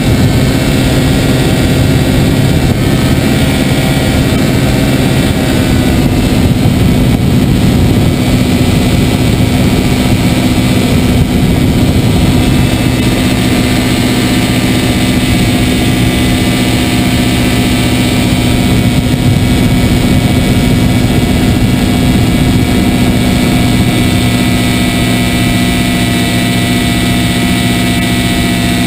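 Engine and propeller of a foot-launched powered hang glider's motor harness (a Mosquito NRG type), a steady buzzing drone at cruise.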